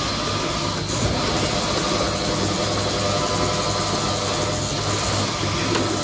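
Milking robot running with a steady mechanical hum and hiss as its arm brings the teat cups in under a cow.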